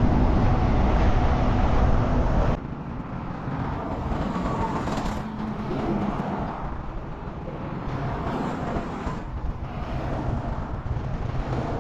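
Steady highway traffic, trucks and cars going by. A loud low rumble for the first two and a half seconds cuts off abruptly, and then a quieter, even traffic noise follows.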